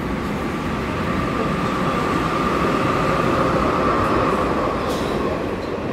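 Train running on the Airport Railroad track behind the platform screen doors: a steady rumble with a whine that swells through the middle and eases near the end.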